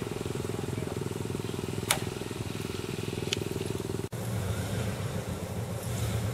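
Pickup truck engine running steadily, with two sharp clicks about two and three seconds in. About four seconds in the sound drops out for an instant and a deeper engine note follows.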